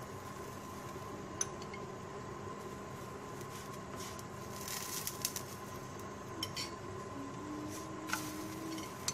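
A metal spoon lightly scraping and clicking against a flatbread and a nonstick frying pan as a water-and-oil mixture is spread over the bread. There are several sharp clicks, with a quick cluster about five seconds in, over a steady hiss.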